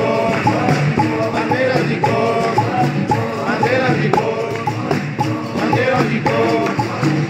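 Capoeira angola bateria playing: berimbaus and pandeiros with an atabaque drum keeping a steady rhythm while voices sing a chorus over it.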